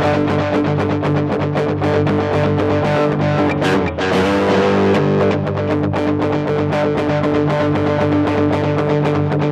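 Distorted electric guitar playing, held notes with many quickly picked attacks, with a short break about four seconds in.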